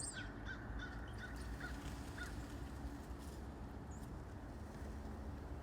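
Faint, scattered calls of wild birds, short chirps here and there over a low steady background.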